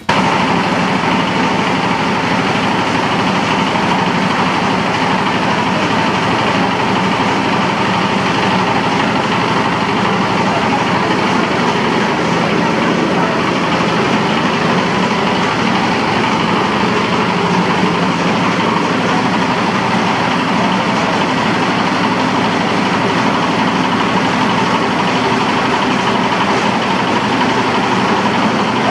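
A machine's engine running steadily at a constant speed, an unchanging mechanical hum with a faint steady whine.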